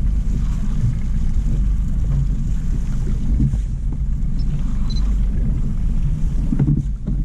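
Steady low rumble of wind buffeting the microphone aboard a small boat at sea, with a couple of faint knocks near the end.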